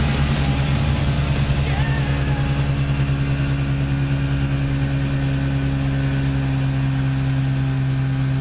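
Motorboat engine running steadily under way, a low even drone with a slight pulsing that smooths out after the first few seconds.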